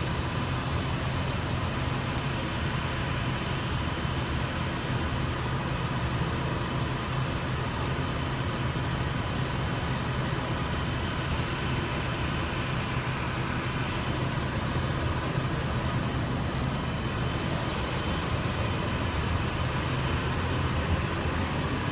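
Steady low mechanical hum of machinery running, unbroken and even in level.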